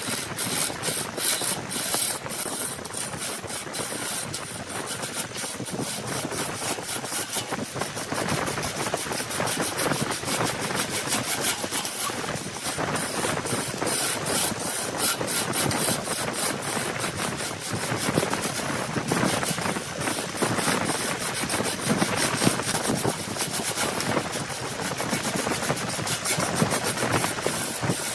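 Woodturning lathe running, with a tool scraping against the spinning wood in a continuous, gritty rasp.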